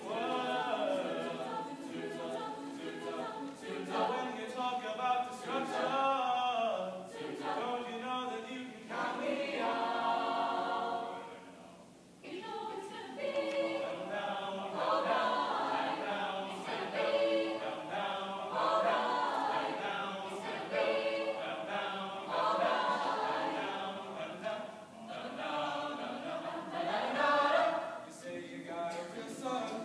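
Chamber choir singing a cappella, many voices in sustained harmony, with a brief break about twelve seconds in before the next phrase.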